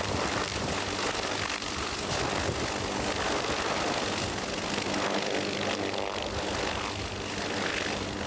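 AH-1Z Viper attack helicopter hovering and moving off low, its rotor and twin turboshaft engines running steadily: a dense rotor drone with a thin high turbine whine that fades about halfway through.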